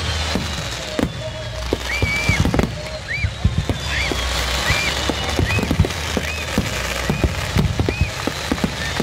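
Fireworks going off close by: many sharp bangs and pops from aerial shells bursting, in irregular quick succession over a steady low rumble. Short high chirping tones recur throughout.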